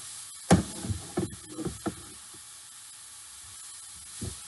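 Ground sirloin sizzling with a steady hiss in a hot skillet while a spatula stirs it, knocking against the pan in a quick cluster over the first two seconds and once more near the end.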